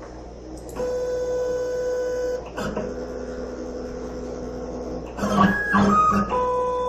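LongMill CNC's stepper motors whining as the machine jogs through an automatic touch-plate probing routine: a steady whine, a click about two and a half seconds in, a lower, slower whine, then a quick run of short moves and the higher whine again near the end.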